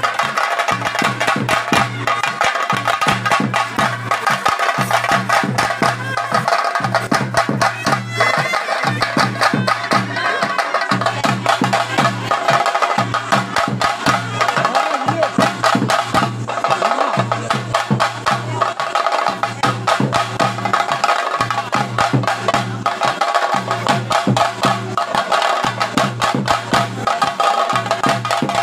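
Chenda melam: a group of chenda drums beaten with sticks in a fast, continuous, loud rhythm, with a low beat that breaks off about every two seconds.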